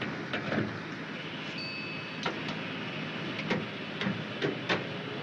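Gas station sounds while a van is being fuelled: a steady background hiss with a handful of sharp clicks and knocks, and a short high ding about two seconds in.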